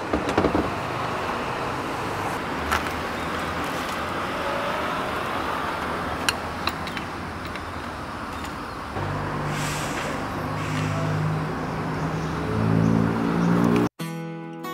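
Steady traffic hum from a nearby road. A cluster of clicks and knocks near the start comes from a road bicycle being lifted out of a pickup truck bed, and a few single clicks follow. From about nine seconds in, a low drone that shifts in pitch joins and swells, then everything cuts off abruptly near the end.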